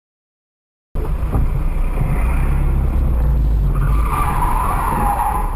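Sound cuts in about a second in: the low rumble of a car's engine and road noise heard from inside the cabin, then from about four seconds in a car's tyres skidding for about a second and a half.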